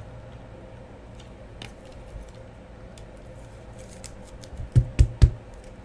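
A trading card being handled into clear plastic sleeves and a hard plastic card holder: faint scattered plastic clicks, then three quick thumps close together near the end.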